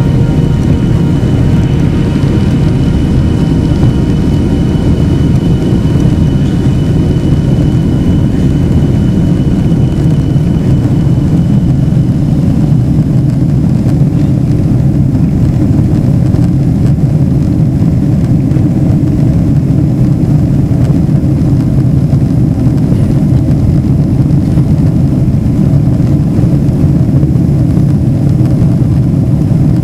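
Inside an airliner cabin during takeoff and climb: the jet engines and airflow make a loud, steady roar. A thin high whine fades out about twelve seconds in.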